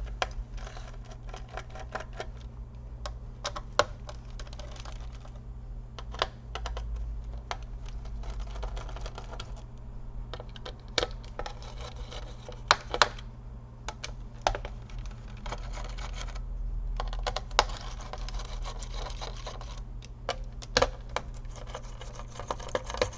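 A small screwdriver backing out the laptop's heatsink screws: irregular sharp clicks and rasping scrapes of metal on the screws and the board, with a steady low hum underneath.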